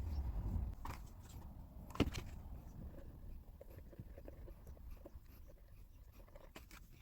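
Light scratching and small clicks from close-up handiwork on a small die-cast model car, with one sharper click about two seconds in.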